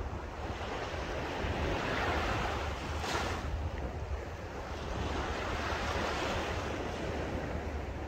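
Small, calm waves washing onto a sandy beach, swelling twice with a sharper splash about three seconds in, over a steady low rumble of wind on the microphone.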